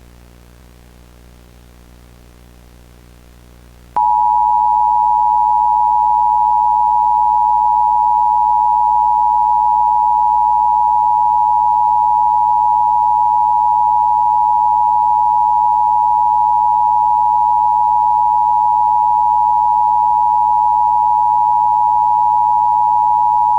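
Emergency Broadcast System attention signal: a loud, steady two-tone alarm near 1 kHz that comes on suddenly about four seconds in and holds unchanged for about twenty seconds. Before it there is only a faint steady hum.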